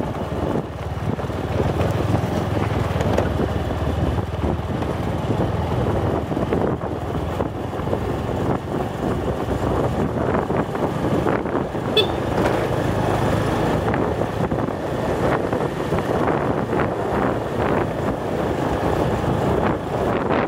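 Small motorcycle engine running steadily while riding, with wind buffeting the microphone. A brief high-pitched chirp sounds about halfway through.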